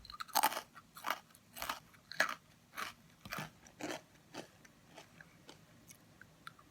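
Fortune cookie being chewed with the mouth close to the microphone: crisp crunches about twice a second, growing fainter after about four seconds as the cookie breaks down.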